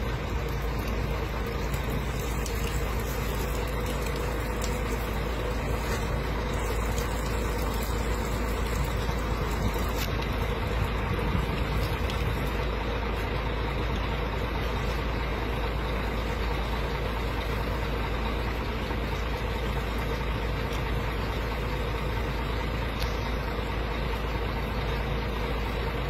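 Heavy lorry's engine idling steadily, a constant low rumble.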